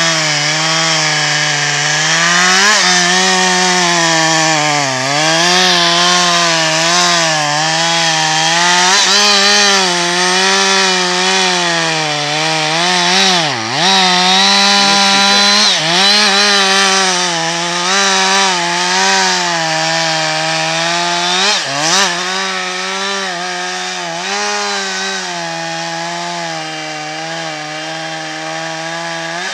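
Two-stroke chainsaw running at high revs while cutting into a felled beech trunk; its pitch sags again and again as the chain bogs down in the wood, dropping sharply about 5, 13 and 22 seconds in before winding back up. Over the last several seconds it runs steadier and a little quieter.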